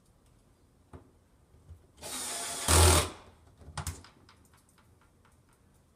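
Cordless drill driving a screw into the spice rack's metal mounting plate for about a second, much louder for a moment just before it stops. A few small clicks and knocks come before and after.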